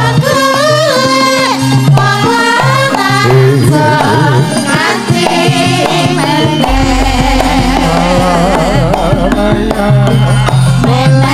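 Javanese gamelan music with a singer's voice wavering over the ensemble's steady metallophone notes and drumming. A deep low tone enters about two-thirds of the way through.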